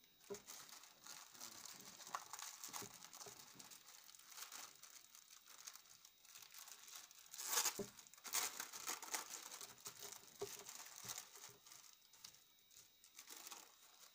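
Thin clear plastic packaging bag crinkling as hands handle it and tear it open, with a louder rip about halfway through.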